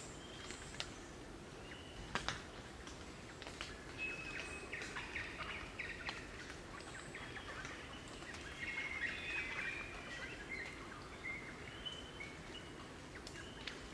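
A group of crimson rosellas chattering: many short, high notes and brief whistles, busiest from about four seconds in until near the end, with a few sharp clicks mixed in.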